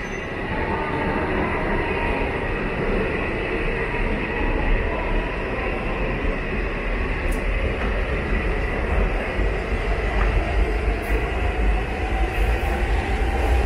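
E5 series Shinkansen pulling out past the platform, a steady rumble and rush of wheels on rail that grows a little louder. A faint whine rises slowly in pitch in the later part as the train gathers speed.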